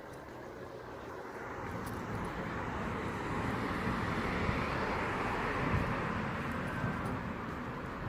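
A passing vehicle: a rushing noise that swells over the first few seconds, peaks around the middle and eases slightly near the end.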